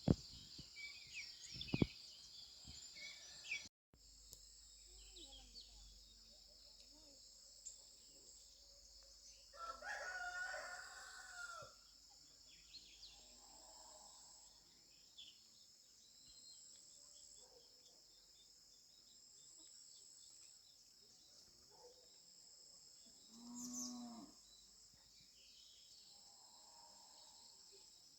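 Quiet rural ambience with a steady high-pitched insect drone, broken twice by animal calls: one about ten seconds in and a cow mooing about twenty-four seconds in.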